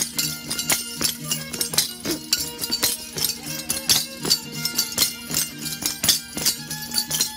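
Traditional folk dance music: a steady melody with held tones over a beat of sharp, jingling, rattle-like percussion.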